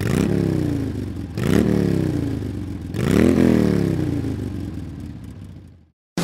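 Motorcycle engine revved three times, about a second and a half apart, each rev rising quickly in pitch and then falling back, the last one dying away.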